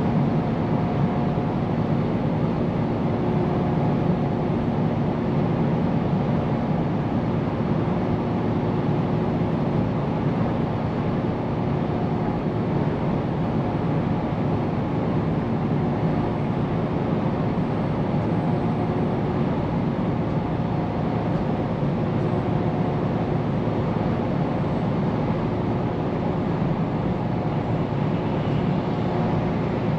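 Scania P410 truck driving at a steady speed: a constant engine drone with a faint steady hum over road and tyre noise.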